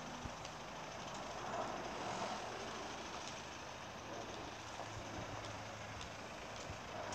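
A vehicle engine running steadily: a faint low hum under an even hiss, with a few small ticks.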